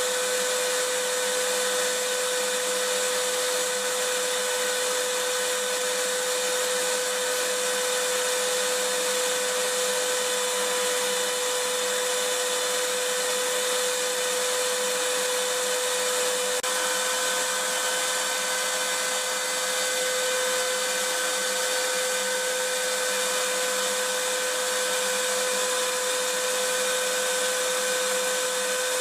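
Vacuum cleaner running steadily: an even rush of air noise with a constant whine on top. The whine's upper tones shift slightly about sixteen seconds in.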